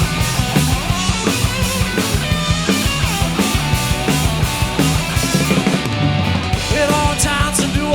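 Live rock band playing an instrumental blues-rock passage, driven by a steady drum-kit beat.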